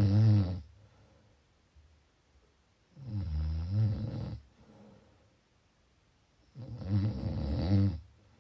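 A sleeping person snoring at a steady pace, about one low snore every three and a half seconds, each a little over a second long. One snore is dying away as the sound begins, and two more follow.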